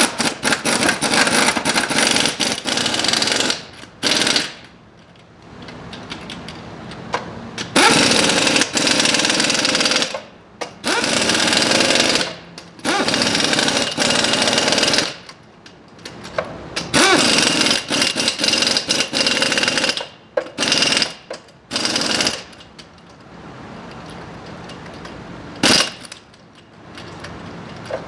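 Pneumatic impact wrench hammering in repeated bursts of a few seconds each, with short pauses between.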